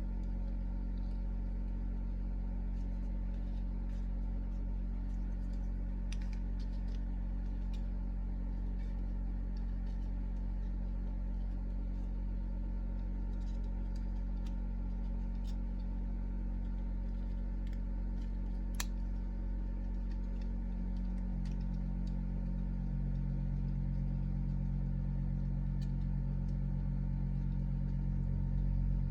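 A steady low engine-like drone that shifts up to a new pitch about three-quarters of the way through, with a few faint light clicks.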